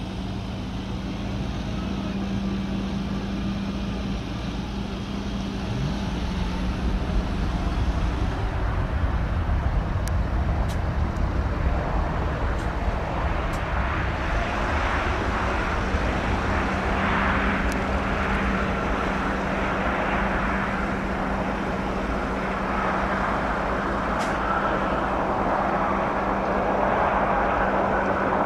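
Boeing 787 jet engines heard during touchdown and landing rollout: a steady low hum under a rushing engine roar that builds about a third of the way in and stays loud as the airliner slows on the runway with spoilers up.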